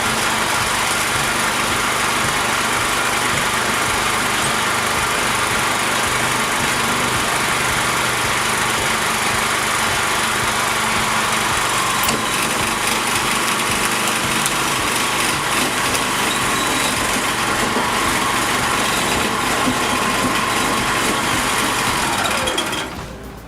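A small motor running steadily under load, with a steady whine, until it cuts out near the end.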